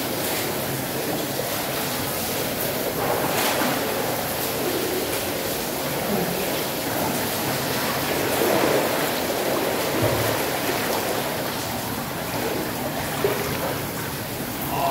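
Jacuzzi jets churning and bubbling the pool water in a steady rush, with a few louder swells.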